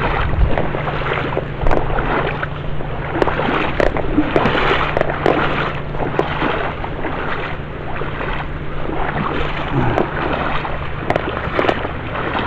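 Footsteps knocking and scuffing irregularly over wet rocks at the river's edge, over the steady rush of river water and wind on the microphone.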